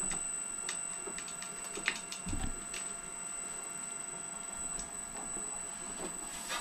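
Motor-driven bead roller running slowly through a 3D-printed 75:1 belt reduction, turned down on a VFD, as a sheet-metal panel feeds through its offset dies. It makes a steady electric motor whine with scattered light clicks and a low thump a little past two seconds in.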